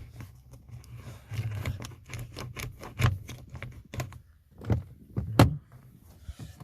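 A thin plastic strip cut from a parmesan cheese container being jammed and worked into a car door, clicking and knocking against the door's plastic. The clicks come irregularly, with louder knocks about three seconds in and twice between four and a half and five and a half seconds in.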